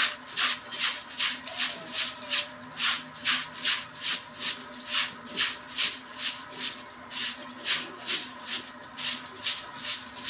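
Stiff broom scrubbing a wet concrete pig-pen floor in quick back-and-forth strokes, an even scraping rhythm of about two to three strokes a second.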